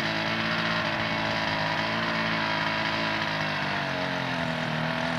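Engine of a homebuilt experimental helicopter running steadily, its pitch shifting slightly about four seconds in.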